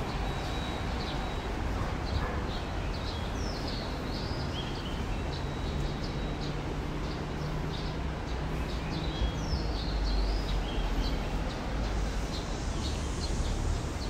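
Many small songbirds chirping and whistling: quick short calls, with a few longer gliding whistles, over a low steady rumble.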